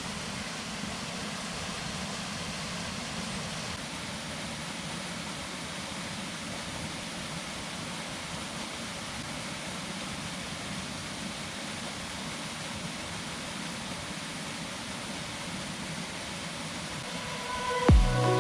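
Steady rush of a plunge waterfall and a swollen river, an even hiss without breaks. Music starts near the end.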